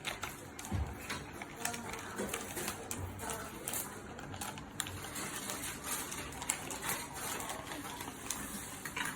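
Candy packaging being handled and opened: irregular small crackles and clicks of plastic wrapping.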